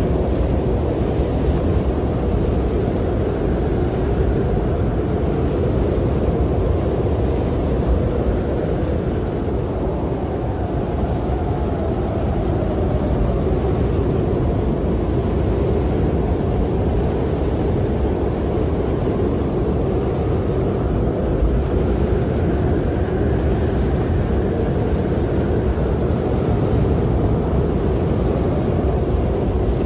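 Snowstorm wind blowing steadily as a low, dense rush, with slow swells that rise and fall every several seconds.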